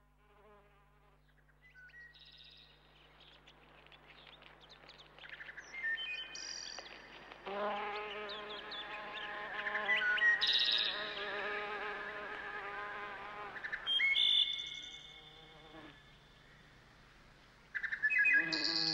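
An insect buzzing, wavering in pitch and loudest from about seven to fourteen seconds in, with birds chirping and twittering over it.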